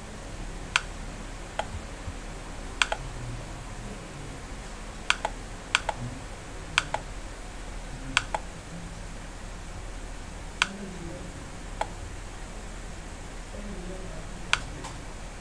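Computer mouse clicking: about a dozen sharp, irregular clicks, several in quick pairs, over a steady low hum.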